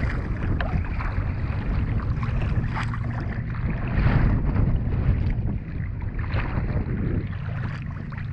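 Strong wind buffeting the microphone in a continuous low rumble, with choppy water splashing and lapping against a kayak hull.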